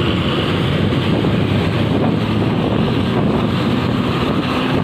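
Wind buffeting the microphone over the steady running of vehicle engines and tyre noise in traffic close behind a bus.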